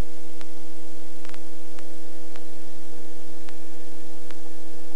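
A steady electrical hum made of several steady tones over an even hiss, with scattered faint clicks at uneven intervals.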